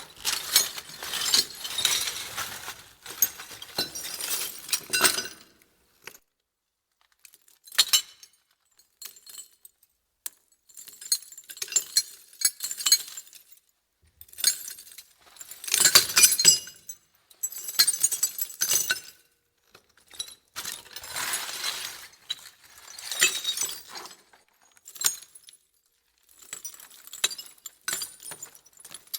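Thin metal junk debris, such as scraps of tin and appliance sheet metal, being shaken and shifted: bursts of clattering, jangling and clinking, each a second or a few seconds long, with short pauses between them.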